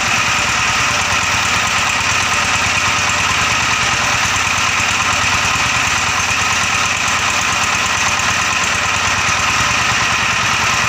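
Dongfeng S1110 single-cylinder diesel engine running steadily at constant speed after an overhaul, its rapid even firing beat unchanged throughout.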